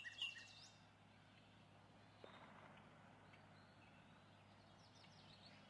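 Near silence: a faint steady hum and hiss, with a few high chirps dying away in the first half-second and faint chirps again shortly before the end.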